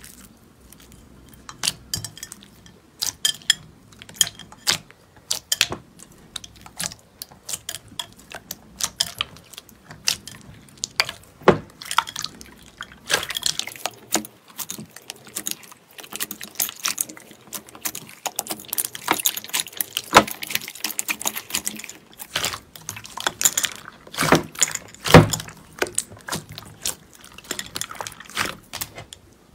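Wet gold slime being stirred and squeezed by hand in a glass bowl: a steady run of sticky, wet clicks and squelches that grow denser about halfway through.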